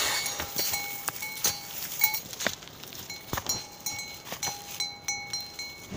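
Bell on a bull's neck ringing and clinking in short repeated tones as the animal moves its head while grazing, with light clicks and rustles of dry grass.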